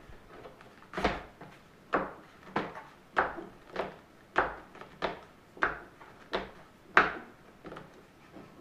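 A wooden trim piece being rocked and pressed by hand into its joint on a wooden desk frame, giving about a dozen sharp wooden knocks, roughly one every two-thirds of a second, starting about a second in.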